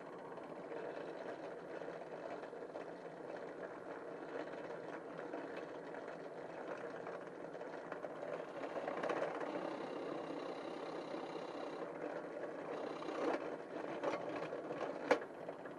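Electric drill running steadily as it bores a hole through the bird-call piece, with a sharp click near the end.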